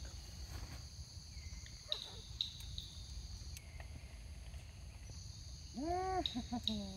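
Steady, high-pitched insect chorus with a low rumble underneath. About six seconds in comes a brief vocal sound that rises then falls in pitch.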